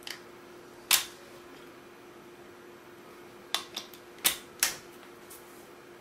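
Hard plastic clicks and knocks of a new three-pin mains plug being wiggled in a new switched wall socket: a sharp click about a second in, then a quick run of five more about three and a half seconds in, over a faint steady hum.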